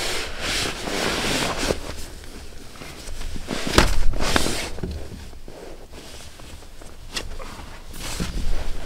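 A backpacker getting out of a tent: nylon fabric and gear rustling, with a heavy thump about four seconds in and a sharp click later on. Footsteps on the ground.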